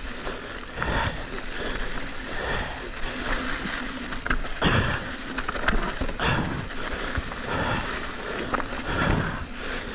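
Commencal Meta HT AM hardtail mountain bike rolling down a dirt singletrack: tyre and wind rumble with frequent sharp knocks and rattles from the bike over rocks and bumps. The rider breathes hard in swells about every second or so.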